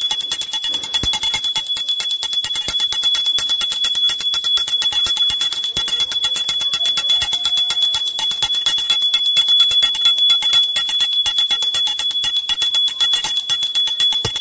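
A small bell rung rapidly and without a break, a fast, even ringing with a bright, high, clear tone.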